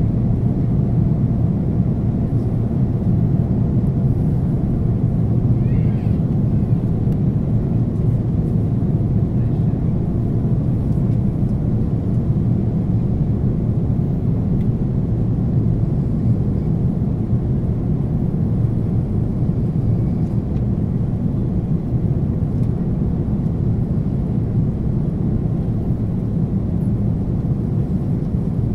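Steady low rumble of an airliner's jet engines and rushing air, heard from inside the passenger cabin while the plane descends on its approach to land.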